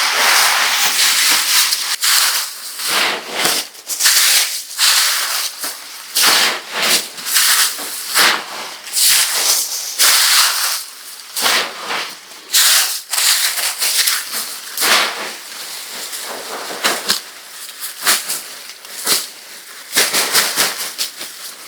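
Irregular rustling and crackling of dry material being handled, in a run of short scuffs, some louder than others, without a steady rhythm.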